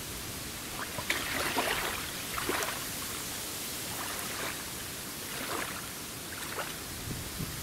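Small wind-driven waves lapping at a grassy riverbank, with a few short, light splashes in the shallows as a small hooked crucian carp is drawn in to the edge.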